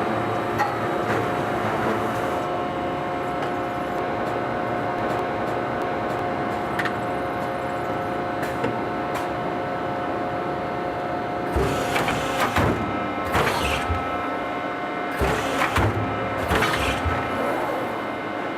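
Furnace wrapper manufacturing machine running, with a steady hum made of several constant tones. In the second half come two groups of short bursts of clatter and hiss, the loudest sounds here, each group a few bursts over a second or two.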